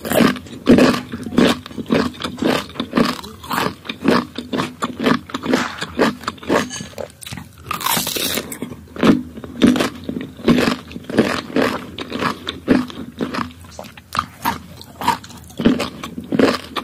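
Crunching and chewing of firm green mango slices, bitten and chewed in a steady rhythm close to the microphone.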